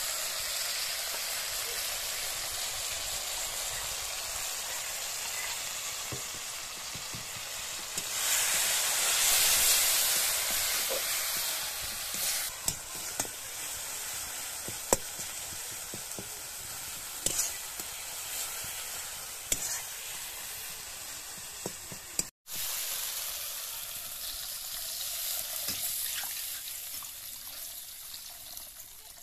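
Tomatoes and spice masala sizzling in a hot metal wok while a metal spatula stirs them, scraping and clicking against the pan. The sizzle surges loudly about eight seconds in and dies down near the end.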